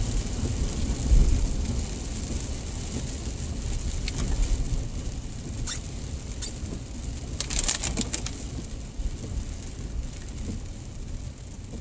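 Steady rain and wet-road noise with a low rumble, heard from inside a moving car. A few brief light clicks come near the middle.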